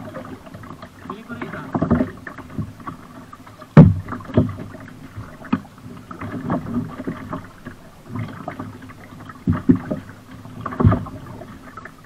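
Double-bladed kayak paddle stroking and splashing in calm water, alternating sides, with several sharp knocks, the loudest about four seconds in.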